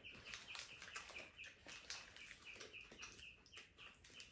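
Faint bird chirping: a quick run of short high chirps, about six a second, that breaks up into scattered chirps after about a second, with faint clicks and rustles of eating and the paper wrapper.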